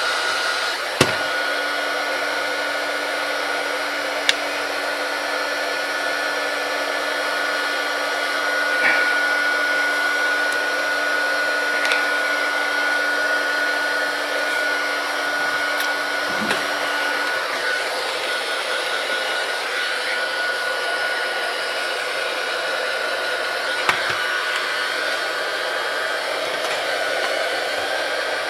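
Hot-air gun blowing steadily, heating the tablet's screen to soften the adhesive under the glass, with a few light clicks.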